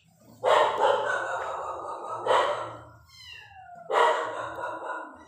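An animal crying loudly three times: a long cry near the start, a short one in the middle and another about four seconds in, with a short falling call between the last two.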